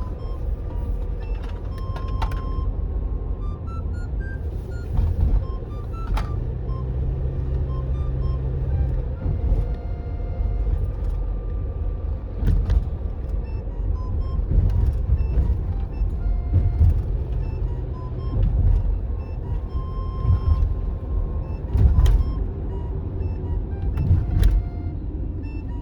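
Steady low rumble of a car on the road, with light background music of short pitched notes over it.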